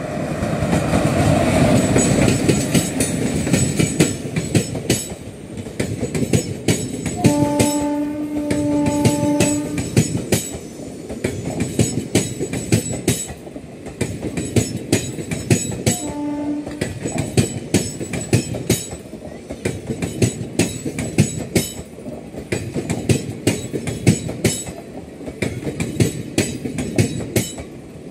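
WAP-4 electric locomotive and ICF passenger coaches passing, loudest in the first few seconds, then a steady clickety-clack of the coaches' wheels over rail joints. A train horn sounds in a long blast about seven seconds in and a short one around sixteen seconds in.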